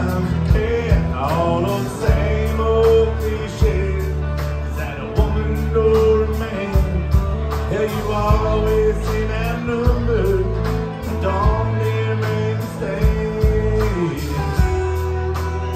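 Live country band playing: a male lead singer over acoustic and electric guitars and drums, with a steady beat.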